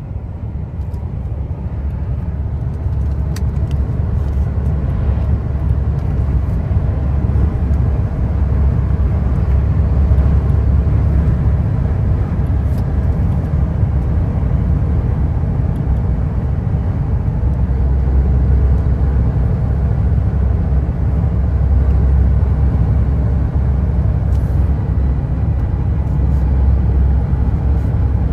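Truck cab interior while driving: a steady low engine drone and road rumble, growing a little louder over the first several seconds, with a few faint clicks.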